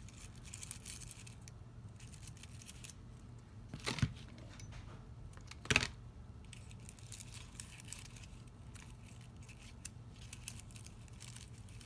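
Scratchy rubbing on paper card as ink is brushed onto the edges of stamped paper flowers, with two sharp taps, about four and six seconds in.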